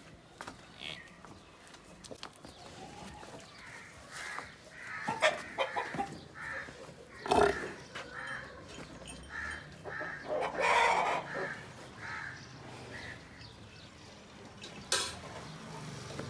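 Chickens clucking in a run of short, repeated clucks, with a few sharp knocks and one louder rough burst about two-thirds of the way through.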